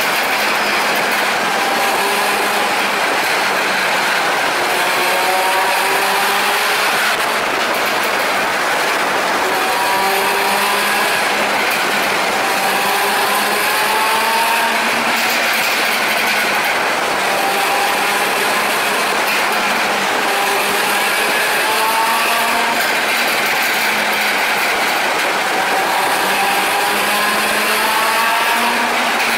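Suzuki SV400S motorcycle's V-twin engine running at speed inside a road tunnel, over steady wind and road noise; the engine note climbs in short glides again and again.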